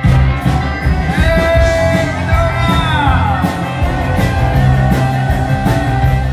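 A live rock band playing on stage with a singer: electric guitar and a strong low bass under a singing voice whose pitch glides up and down.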